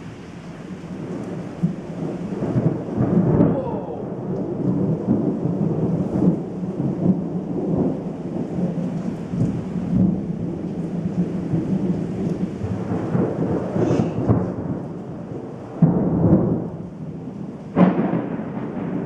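Thunder rumbling continuously through a thunderstorm, with rain falling. Near the end come two sudden close cracks of thunder, the second the sharpest, from a lightning strike darn close.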